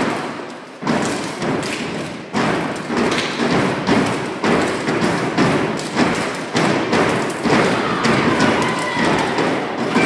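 Step team stepping on a raised stage deck: a fast rhythmic run of loud stomps and hand claps, about two to three a second.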